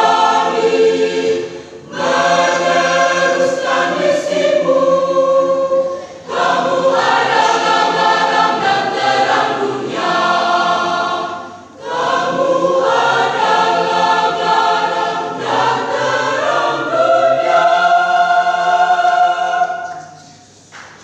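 Church youth choir singing in several parts, in phrases with short breaks between them. The last phrase ends on a long held chord that dies away about a second before the end.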